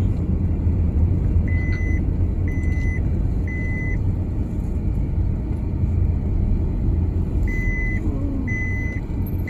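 Car cabin noise while driving: a steady low rumble of engine and tyres. Electronic warning beeps sound three times, about one a second, a little over a second in, and again near the end.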